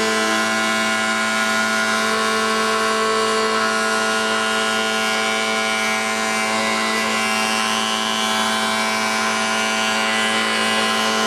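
Woodworking planer running steadily.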